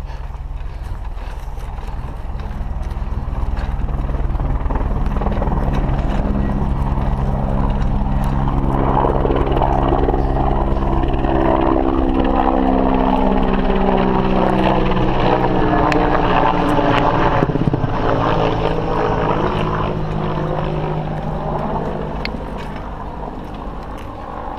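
An engine's droning hum that swells to its loudest mid-way and then fades, its pitch sliding as it passes. Under it is the rattle and rumble of a mountain bike riding over rough dirt.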